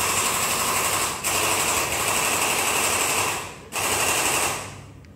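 Power impact wrench hammering in bursts of about two seconds each, loosening fasteners during an engine strip-down. One burst ends about a second in, a second follows at once, and a third starts near the four-second mark and fades out.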